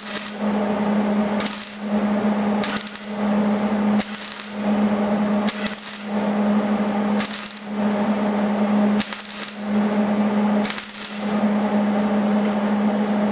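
Welder crackling as it lays weld in a string of short runs, with a brief break about every one and a half seconds, filling in a gap in the metal. A steady electrical hum runs underneath.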